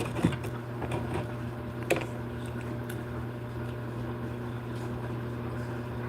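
Steady low mechanical hum, with a brief click about two seconds in.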